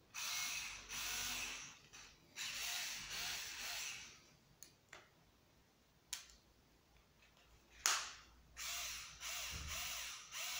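PROTECO 3.6V Li-ion cordless screwdriver running with nothing in its chuck, in short bursts of about a second each: four runs, then three more near the end. Between the two sets come a few sharp clicks, the loudest about eight seconds in, as its pivoting handle is swung from straight into the pistol-grip position.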